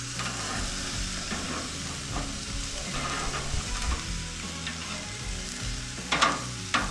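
Beef burger patties sizzling on the grates of a hot gas grill, a steady hiss. A few sharp clicks or knocks come about six seconds in.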